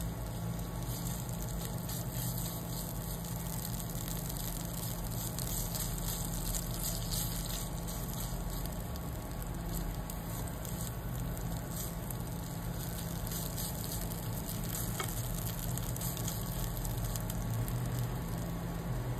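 Red Thai curry paste sizzling and crackling steadily as it fries in oil in a nonstick pan, stirred and pressed with a silicone spatula. A low steady hum runs underneath.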